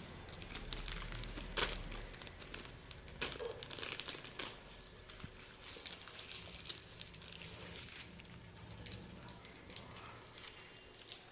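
Snack wrappers and a carrier bag rustling and crinkling as they are handled, in scattered bursts that are busiest in the first half.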